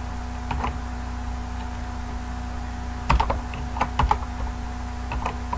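Computer keyboard keystrokes in four short clusters of quick presses, used to paste lines of code, over a steady low electrical hum.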